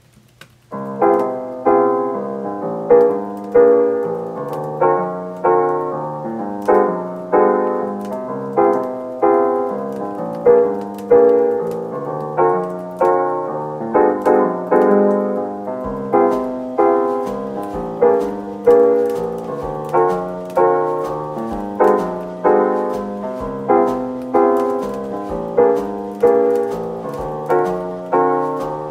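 Background music: a piano playing a steady, repeating pattern of notes, starting about a second in. A soft low beat joins about halfway through.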